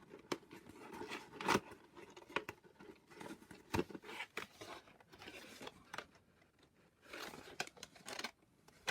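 Cut paper craft pieces being handled and their tabs pushed and tucked together: crinkling and rustling of paper with short sharp taps and clicks. The loudest taps come about one and a half seconds in and just before four seconds.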